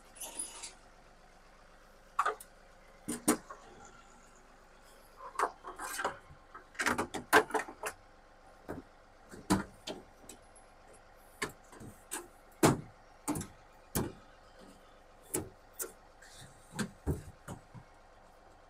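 Irregular knocks, clicks and scrapes of hands-on work at a tall metal cabinet, with an aluminium step ladder being set up and climbed. They come in scattered single hits, busiest about seven seconds in, with one loud knock near the middle.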